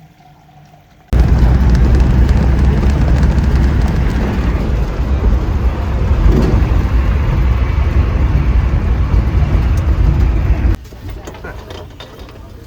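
Loud, steady rushing noise with a heavy low rumble, starting abruptly about a second in and cutting off abruptly near the end.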